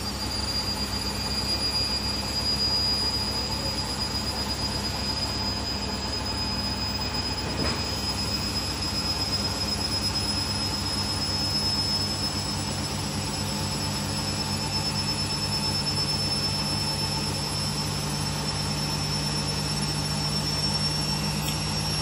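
Beko WRE6512XWWE front-loading washing machine spinning: a steady high-pitched motor whine that rises slightly in pitch, over a low hum and a fast, even pulsing rumble from the drum. This is the machine the owner reports for heavy vibration during spin.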